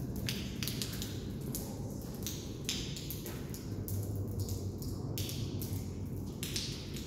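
Steady low rumble of water running in a large concrete sewer overflow culvert, with short irregular splashes and drips over it.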